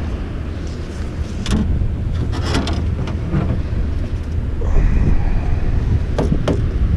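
Steady low rumble of wind buffeting the microphone over churning spillway water, with a few sharp knocks and clicks of gear being handled in the aluminium boat.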